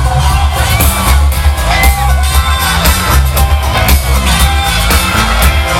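Live band music played loud through a large outdoor festival sound system, with heavy bass and a steady beat, and the crowd's noise mixed in.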